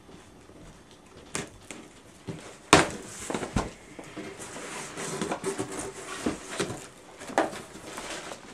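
Cardboard shipping box being opened and handled: scattered knocks and scrapes with rustling, and one sharp knock a little under three seconds in that is the loudest sound.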